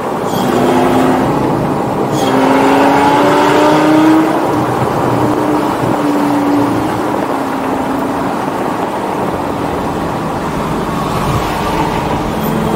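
The straight-piped 5.0-litre V10 of a 2004 Lamborghini Gallardo, heard from inside the cabin, climbs in pitch under acceleration. About four seconds in the pitch drops at a gear change, and the engine then pulls on more steadily over road noise.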